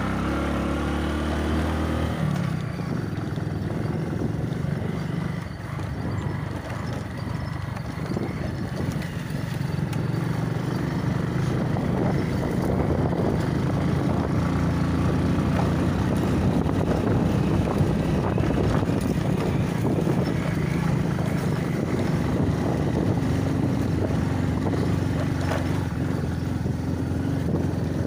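Motorcycle engine running steadily on a rough dirt track, with ride noise over it; it gets louder from about ten seconds in.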